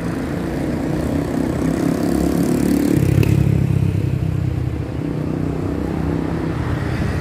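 Road traffic: a motor vehicle's engine passes close by, growing to its loudest about three seconds in and then easing off.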